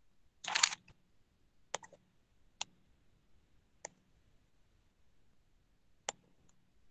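A short clatter about half a second in, the loudest sound, then five single sharp clicks spaced unevenly over the next few seconds, in a quiet room.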